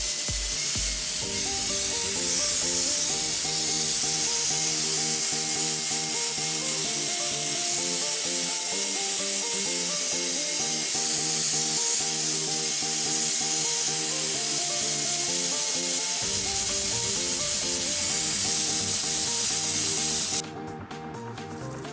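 Background music over a loud, steady hiss like spraying or blasting; the hiss cuts off suddenly near the end and the music carries on.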